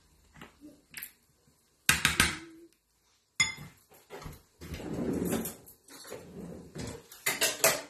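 A metal spoon knocking and clinking against a ceramic bowl of creamy salad dressing, in several short bursts of clatter with a denser stretch of scraping in the middle.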